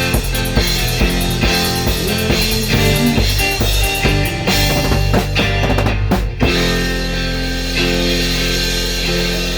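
Instrumental ending of a rock song: drums and guitar play until about six seconds in, then the drums stop and a final chord is left ringing.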